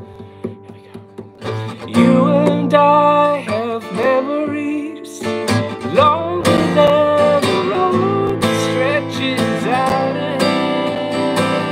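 Acoustic guitar strummed, with a man and a woman singing together. It opens soft and fading, the strumming comes back in about a second and a half in, and the singing joins just after.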